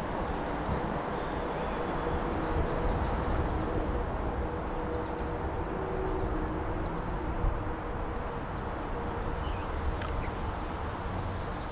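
Steady rushing outdoor background noise, heaviest in the low end, with faint high-pitched bird chirps about five times, spread through.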